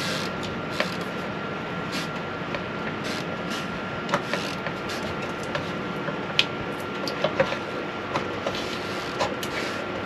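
Scattered light clicks and taps of a hatch fly screen and its hinges being handled and fitted into place overhead, over a steady mechanical hum.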